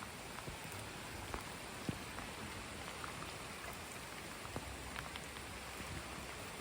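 Steady rain falling, with a constant hiss and scattered individual drips ticking on surfaces.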